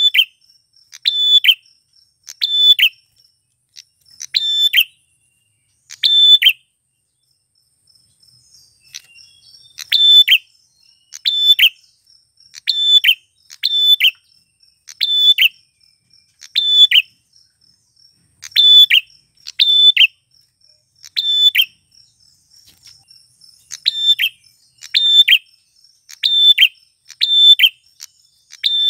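Male prenjak klawu, a prinia, calling over and over in short sharp notes, about one a second, with a pause of a few seconds about a third of the way through. A faint, steady, high insect trill runs underneath.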